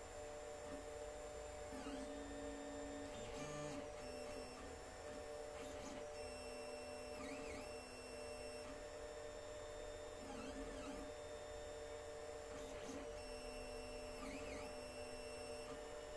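Alfawise U10 3D printer printing in PLA: its stepper motors whine in tones that change pitch with each move of the print head, gliding briefly between moves, over a steady hum.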